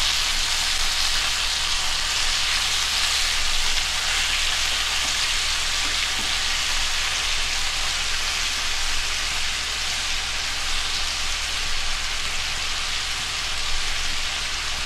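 Chicken thighs sizzling steadily as they sear in hot fat in a frying pan, being turned over with tongs to brown the other side. The sizzle is a little louder in the first few seconds.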